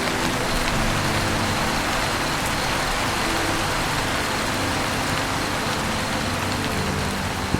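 Steady heavy rain on a roof, an even, unbroken hiss, with a single sharp tap near the end.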